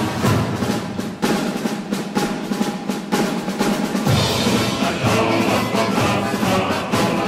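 Soviet military marching song played by a band, opening with snare drum rolls and percussion strokes. The band's low brass fills in about four seconds in, under the song's sung line.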